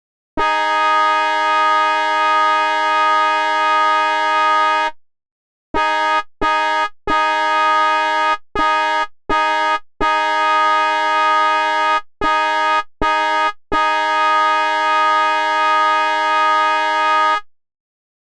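Train engine horn sounding a steady chord at one fixed pitch: a long blast of about four and a half seconds, then a rapid string of nine blasts, some short and some longer, the last held for about three and a half seconds. Each blast cuts off sharply.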